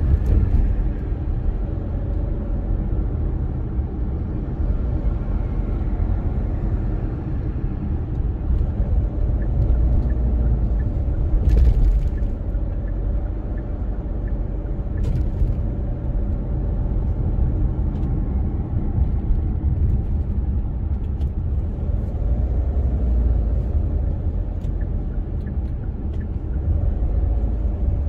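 A car driving on city roads: a steady low rumble of engine and tyre noise, with two brief faint clicks near the middle.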